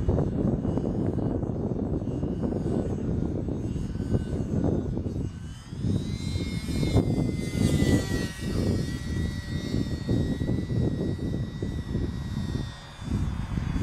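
Radio-controlled model airplane's motor and propeller whining in flight. The whine climbs in pitch as the plane passes low about six seconds in, then sinks slowly and fades as it moves away. A loud, irregular low rumble runs underneath.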